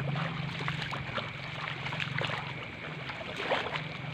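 Footsteps splashing and sloshing through a flooded rice paddy, with scattered small splashes. Under them runs a steady high-pitched night chorus and a low hum that drops out for about a second in the middle.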